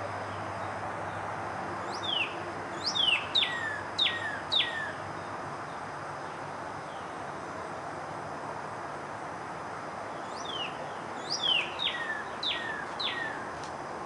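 Northern cardinal singing: two phrases of five or six quick down-slurred whistles each, the first about two seconds in and the second near the end, over a steady background hiss.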